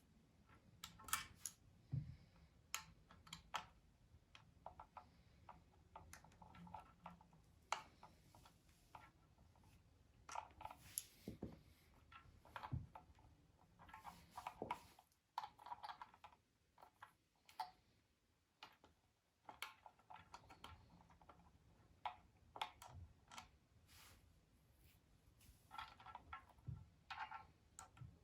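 Faint, irregular clicks and light taps of hands working with tools and small parts, in quick clusters with short pauses between.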